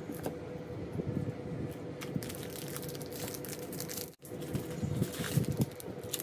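Chocolate-bar wrappers crinkling and tearing as a Cadbury Dairy Milk Silk bar is unwrapped from its plastic outer wrapper and inner foil, a rapid irregular crackle over a faint steady hum. The sound drops out for an instant about four seconds in.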